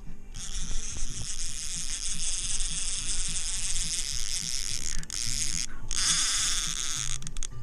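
Fishing reel whirring steadily under the load of a hooked striped bass, with two short breaks near the end.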